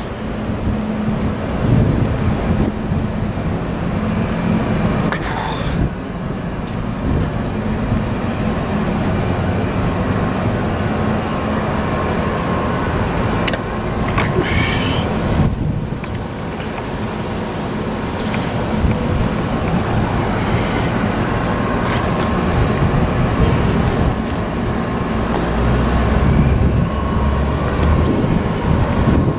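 Steady city traffic noise, with wind rumbling on the microphone.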